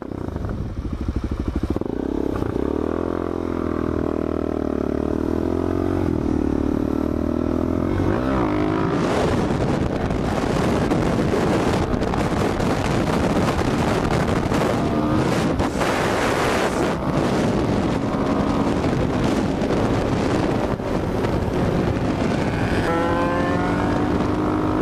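Suzuki DR-Z400SM's single-cylinder four-stroke engine accelerating hard, its pitch rising as the revs climb through the gears. From about eight seconds in, heavy wind noise buffets the helmet microphone, and the revs rise again near the end.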